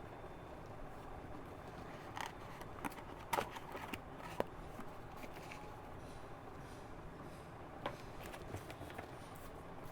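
Tarot cards being handled: a scattering of soft clicks and rustles, a cluster of them a few seconds in and one more near the end.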